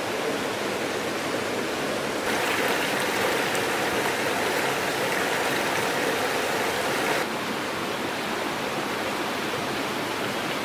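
Rushing stream water, a steady hiss that turns abruptly louder and brighter for about five seconds in the middle, then drops back.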